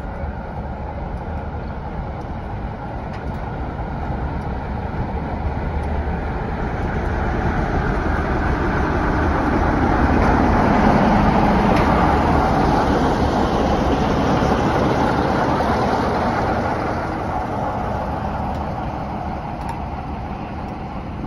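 BR Class 45 'Peak' diesel locomotive D123, with its Sulzer twin-bank diesel engine, running past along the platform with its train. The engine rumble and the wheels on the rails grow louder as it approaches, are loudest about halfway through, then fade as it moves away.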